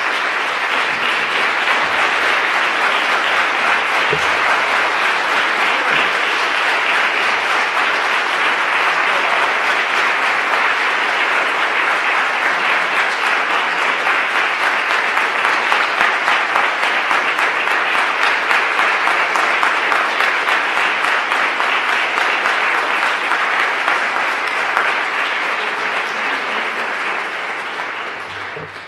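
Large audience applauding: sustained, dense clapping that tapers off over the last few seconds.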